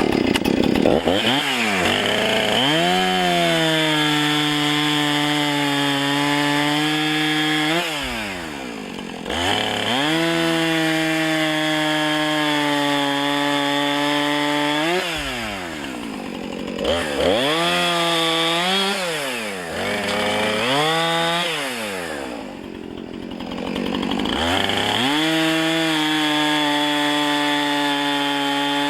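Husqvarna 455 Rancher two-stroke chainsaw revving to full throttle and cutting wood, its engine note holding high under load. It drops back to idle about 8 and 15 seconds in, gives several short throttle blips, then revs up for another cut about 24 seconds in.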